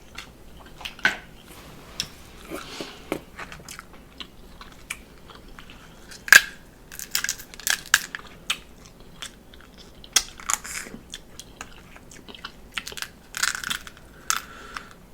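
Crab legs being cracked open and eaten close to the microphone: irregular sharp snaps and cracks of shell, the loudest about six seconds in, with chewing between.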